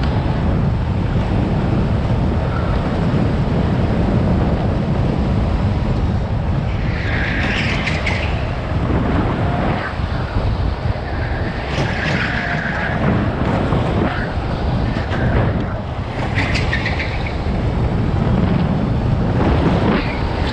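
Go-kart engine running hard at racing speed, heard from on board with wind on the microphone. Tyres squeal briefly through the corners three times, spread over the middle of the run.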